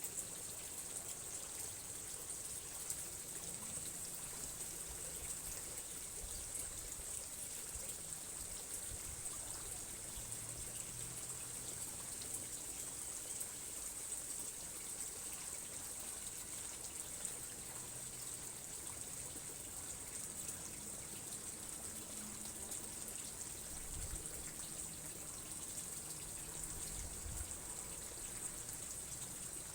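Steady trickle of running water, unbroken throughout, with a faint low hum underneath.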